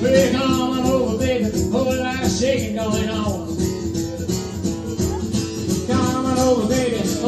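Live acoustic guitar strummed, with a voice singing along over it for the first few seconds and again near the end.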